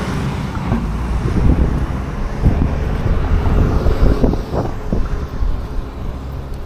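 Wind buffeting the microphone in uneven gusts, over street traffic noise.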